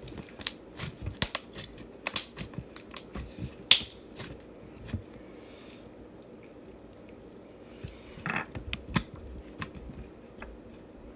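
Gold glitter slime being squeezed, folded and pressed by hand, giving irregular sticky clicks and pops. The clicks come thickly for the first four seconds, thin out, and return in a short run about eight seconds in.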